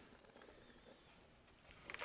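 Near silence: room tone, with a faint click near the end.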